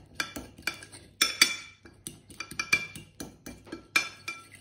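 Metal fork clinking and scraping against a ceramic bowl while mashing boiled garlic cloves in a sauce: a run of irregular, ringing clinks, several a second, the loudest about a second and a half in.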